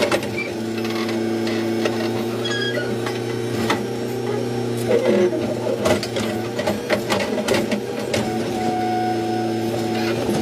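Backhoe loader's diesel engine running steadily under hydraulic load, heard from inside the cab, with scattered knocks and clanks as the digging arm and bucket are worked.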